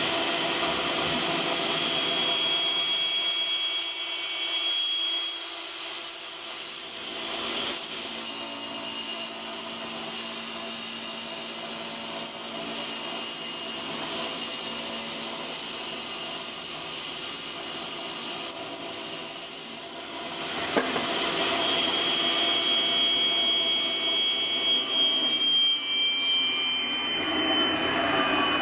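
Old belt-driven table saw running. Its blade cuts through a foil-faced PIR insulation board from about 4 seconds in to about 20 seconds in, adding a high hissing whine over the steady motor hum. It then runs free, and near the end its pitch falls as it winds down.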